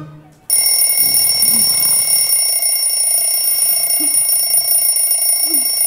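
Alarm clock ringing loudly and without a break, starting suddenly about half a second in.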